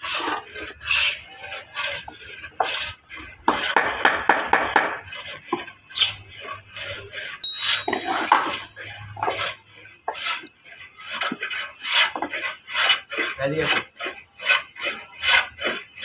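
Plywood pieces of a small bird nest box scraped and rubbed by hand in repeated rasping strokes, coming about two a second in the second half.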